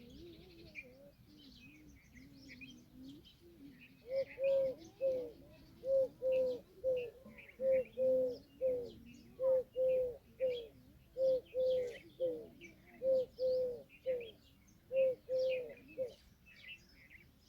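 Indian peahen giving a rapid series of short calls, about two a second in pairs and threes, each dropping in pitch at its end, starting about four seconds in and stopping near the end. Small birds chirp faintly throughout.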